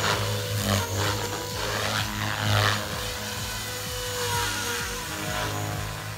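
Electric X360 3D RC helicopter in flight: a steady rotor-and-motor whine with blade whooshes that swell and fade as it flips and turns, the pitch shifting with the manoeuvres.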